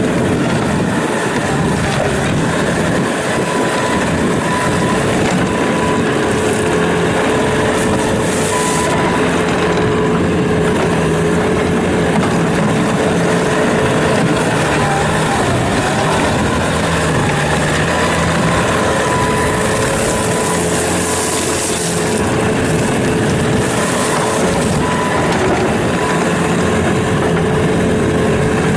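2017 Bobcat T650 tracked skid steer loader's diesel engine running at a steady speed, with a steady whine over it.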